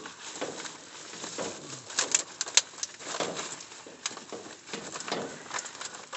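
Black plastic trash bags rustling and crinkling as a hand pushes through them, with a few sharp crackles about two seconds in.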